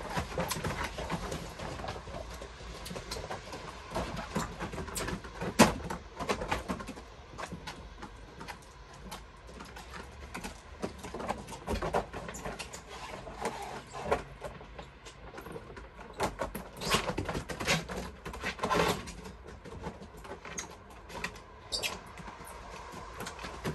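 Handling noise: irregular clicks, knocks and rustling as things are moved about, with one sharper knock about six seconds in.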